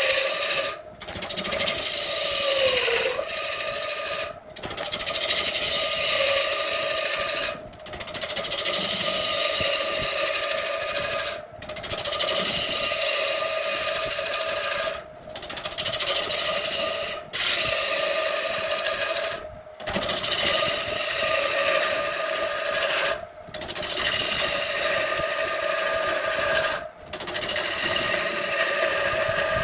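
Wood lathe turning a large log while a hand-held gouge cuts into the spinning wood, tearing off shavings: a steady hum with scraping. The sound drops out briefly about every three to four seconds.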